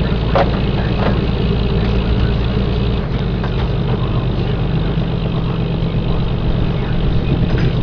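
Lobster boat's engine idling steadily, its low note shifting slightly about three seconds in, with a couple of sharp knocks in the first second or so.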